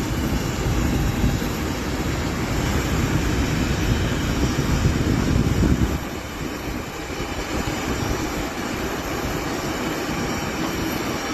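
Embraer E195-E2 jet landing on a wet runway: a steady rushing jet noise with a heavy low rumble that eases off about six seconds in.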